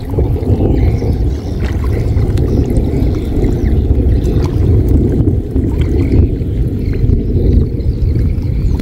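Water sloshing as someone wades chest-deep and feels through floating water mimosa, under a loud, steady low rumble.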